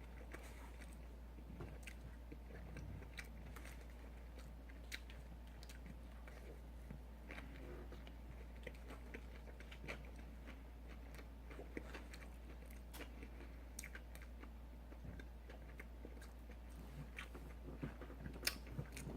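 Quiet chewing and biting of fast food close to the microphone, with scattered faint crunches and mouth clicks.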